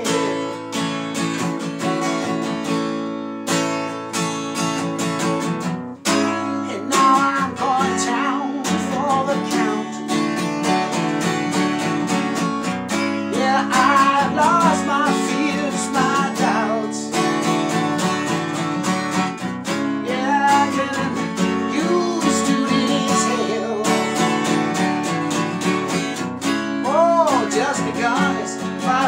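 Acoustic guitar strummed steadily in a blues-style instrumental break, with a neck-rack harmonica playing bending, wavering lines over it.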